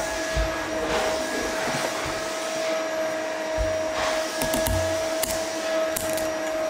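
A steady motor-like hum holding one unchanging tone, with the scrape of a swivel peeler taking strips of rind off a pumpkin in short strokes.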